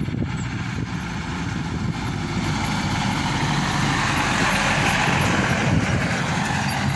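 Mitsubishi flatbed truck's diesel engine running as the truck drives up and draws alongside, its engine and tyre noise growing louder about halfway through.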